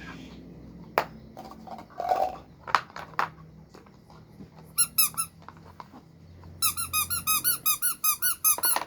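Plastic clicks and knocks from handling, then a rubber squeeze toy squeaking: a few quick squeaks about five seconds in, then a fast run of about fifteen squeaks near the end.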